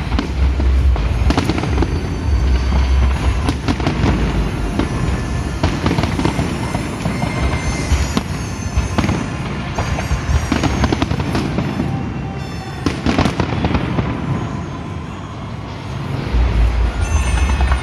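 A fireworks display going off in rapid succession, dense bangs and crackling, over loud music with deep bass that drops back in the middle and comes in strongly again near the end.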